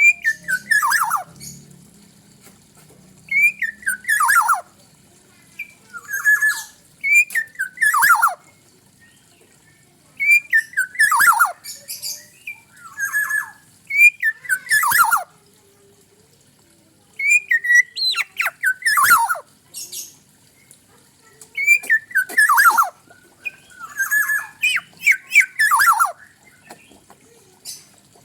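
Black-naped oriole (kepodang) calling. It gives about a dozen phrases, each a brief whistled note followed by a harsh, falling squawk, repeated every two to four seconds.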